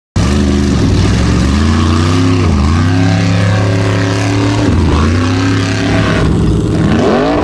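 Unlimited-class Formula Offroad buggy's engine revving at full throttle as it climbs a steep dirt hill. The pitch drops and surges back up several times. The sound starts abruptly.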